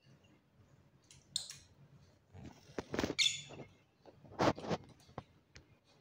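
Fischer's lovebirds giving short high squeaky chirps about a second in and again around three seconds in. Between them come brief splashing and wing-flutter bursts from a lovebird bathing in a water dish, the loudest near three and four and a half seconds in.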